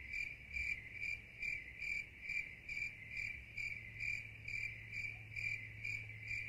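Cricket chirping steadily, about two chirps a second, over a faint low hum: the classic 'crickets' sound of awkward silence.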